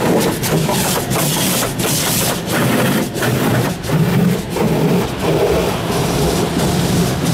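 Heard from inside the car: an automatic car wash's brush and water spray working over the windshield, a dense, uneven wash of water and cloth on glass that swells and dips irregularly, with the machinery's motors humming underneath.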